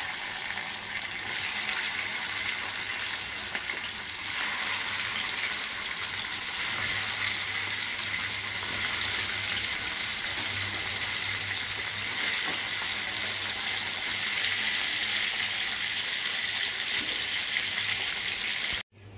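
Pieces of shol (snakehead) fish sizzling steadily as they shallow-fry in hot mustard oil in a frying pan. The sizzle cuts off suddenly near the end.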